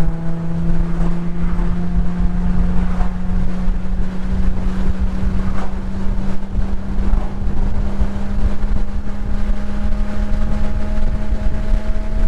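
Infiniti G37 sedan's V6 engine, fitted with an aftermarket exhaust, droning at steady part throttle while driving. Its pitch creeps slowly upward as the car gently gains speed, under a constant rumble of road and wind noise.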